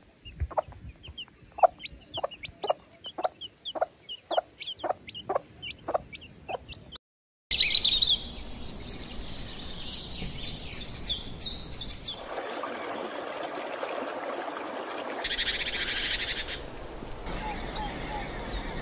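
A hen clucking in a steady series of about two clucks a second, with her young chicks peeping over it. After a brief break about seven seconds in, wild birds call over an even rushing noise.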